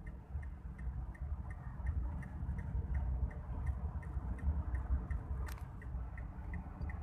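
Car indicator relay ticking steadily, about three ticks a second, over the low rumble of engine and road noise inside the cabin. One sharper click comes about five and a half seconds in.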